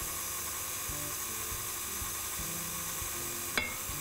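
KitchenAid Artisan stand mixer running at low speed, its flat beater turning through cake batter as flour is added. A sharp click about three and a half seconds in.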